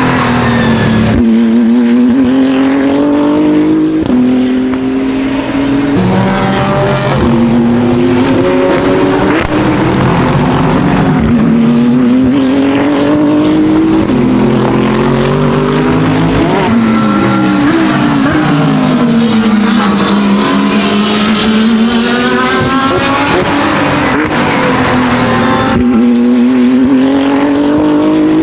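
BMW M4 GT3 race car's twin-turbo straight-six running hard at racing speed, its note climbing through the revs and dropping sharply again and again with the gear changes.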